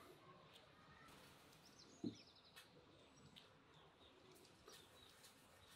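Near silence: faint outdoor ambience with birds chirping, and a single soft knock about two seconds in.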